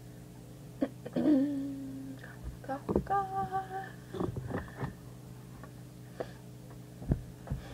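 A girl humming two short held notes, the second higher and slightly wavering, with a few light clicks and knocks around them over a steady low hum.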